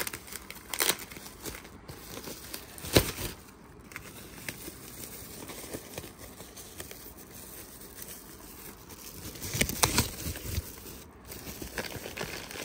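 Speaker-kit accessory packaging being opened and handled by hand: rustling and crinkling with a few sharp clicks and knocks. The loudest knock is about three seconds in, with a cluster of clicks near the ten-second mark.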